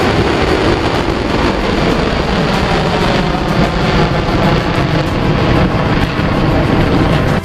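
Ballistic missile's rocket motor firing at liftoff: a loud, dense, continuous rushing roar with no break.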